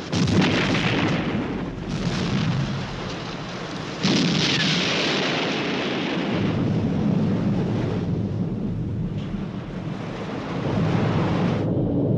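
Explosions aboard a ship at sea: a blast at the start, another about two seconds in and the largest about four seconds in, each followed by long rumbling. The sound cuts off abruptly near the end.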